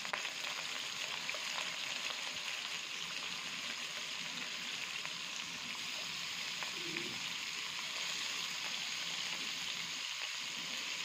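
Marinated chicken pieces sizzling in hot oil in a non-stick kadai as more pieces are laid in one by one: a steady frying hiss.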